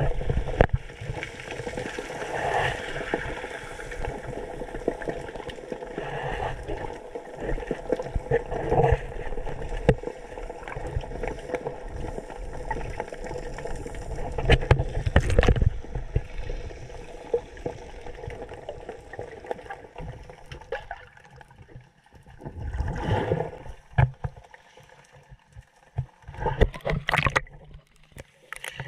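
Muffled underwater sound through a GoPro camera: a steady wash of water with many short low knocks. Near the end come louder gurgling splashes as the camera breaks the surface.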